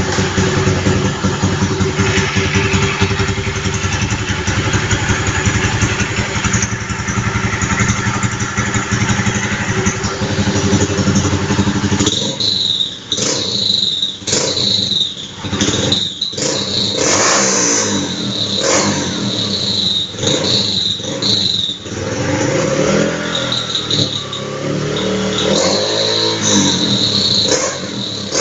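Honda Titan 150's single-cylinder four-stroke engine running through an aftermarket RONCAR ML Competition exhaust: steady at first, then revved in repeated throttle blips from about halfway through. Each rev brings a high whistle from the exhaust, which is sold as a whistling ('assoviador') pipe.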